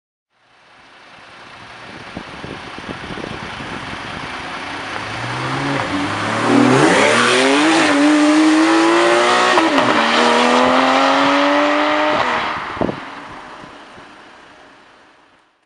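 Porsche 991 Carrera S flat-six engine accelerating hard at full throttle. Its pitch climbs steeply, drops briefly with an upshift about nine and a half seconds in, then climbs again until the throttle is lifted around twelve seconds. A single sharp pop follows about a second later.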